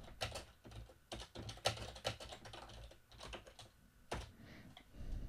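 Computer keyboard typing: a run of irregularly spaced key clicks as a short sentence is typed.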